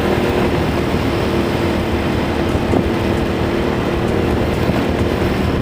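Motorcycle engine running steadily while riding, under a dense low rumble.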